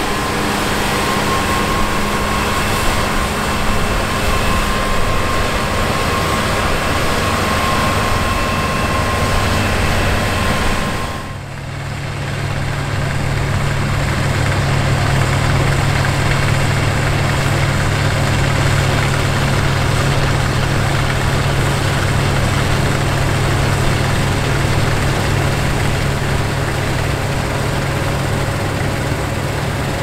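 The 790 hp Fendt Ideal 10T combine running steadily under harvesting load. At first it runs alongside the grain cart and its tractor while unloading, with a faint steady whine. Then, after a brief dip about 11 seconds in, it carries on as a steadier low drone as the combine comes on through the wheat.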